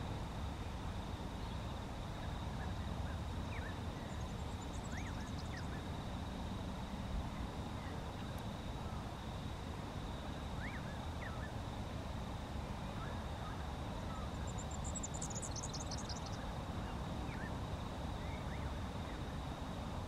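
Outdoor ambience: a steady low rumble, with faint scattered chirps of small birds and a high, rapid falling trill from a small bird about fifteen seconds in.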